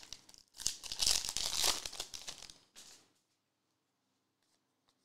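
Foil wrapper of a Recon trading-card pack being torn open and crinkled by hand for about two seconds, then it goes quiet.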